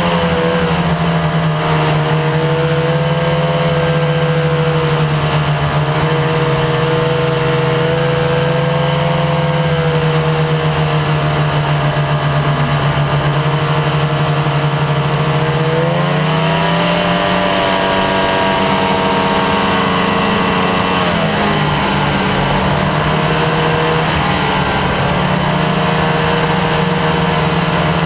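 Snowmobile engine running steadily at trail speed. Its pitch rises about halfway through as the sled speeds up, dips briefly a few seconds later, then settles again.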